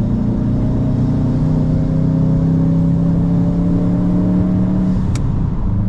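Car engine pulling steadily in gear, its pitch climbing slowly for about five seconds, then dropping as the throttle eases off. A single sharp click comes just as the pitch drops.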